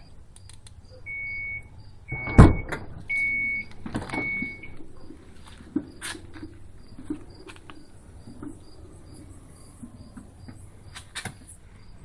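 2012 Dodge Grand Caravan power liftgate cycling with its latch reset: the liftgate warning chime beeps four times, a heavy thunk comes about two seconds in, and then the liftgate's drive motor runs with a faint hum and small clicks.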